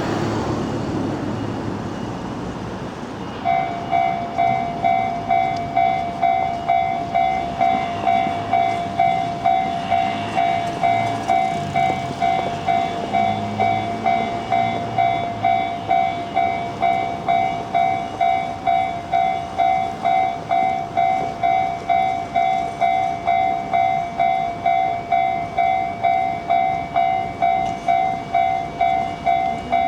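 Japanese railway level-crossing warning bell starting about three and a half seconds in, then ringing steadily as a repeating ding at about two a second. It signals that the crossing has activated for an approaching train.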